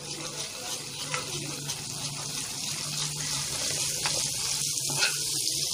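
Hot oil sizzling and crackling in a kadhai just after a pinch of asafoetida and turmeric go in, stirred with a spoon; the sizzle grows steadily louder as the oil bubbles up.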